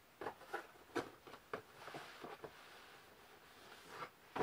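Cardboard shipping boxes and books being handled on a table: a string of light knocks and taps with soft cardboard rustling in the middle, and a sharper knock near the end.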